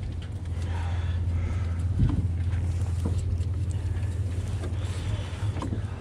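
Fishing boat's engine running with a steady low hum, with a couple of light knocks about two and three seconds in.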